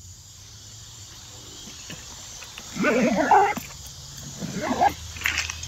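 Steady chirring of crickets and other insects. About three seconds in comes a short, loud voice-like sound, and a weaker one follows near five seconds.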